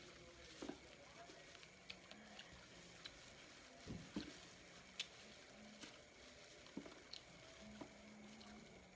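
Faint eating sounds: scattered small clicks and soft wet squishes of chewing and handling food, with a low steady hum under them.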